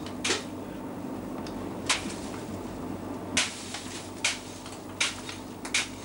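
Sharp, irregular blows of a hand tool chipping at packed ice, about once a second and coming quicker near the end, with a steady low hum underneath.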